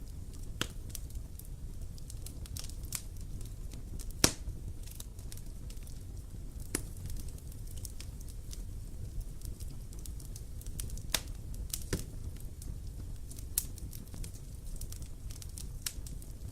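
Campfire burning: irregular crackles and pops from the burning wood over a steady low rumble, with one sharper pop about four seconds in.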